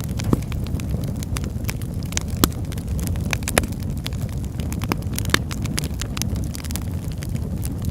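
Fire burning steadily, a low rumble of flames with frequent sharp, irregular crackles and pops.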